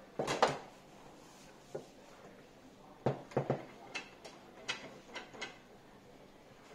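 Foosball play on a JX 125 table: sharp clacks of the ball being struck by the rod figures and knocking against the table. A loud flurry of three or four hits comes just after the start, then about eight knocks follow from about three seconds in.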